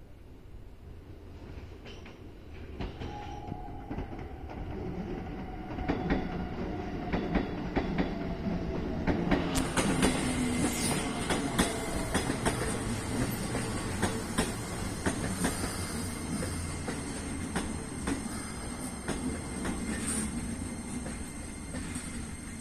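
Electric commuter train passing close by: a steady rumble of wheels on rail with rapid clicks over the rail joints, and a motor whine that falls slowly in pitch. It grows louder over the first few seconds, and a high thin squeal joins about ten seconds in.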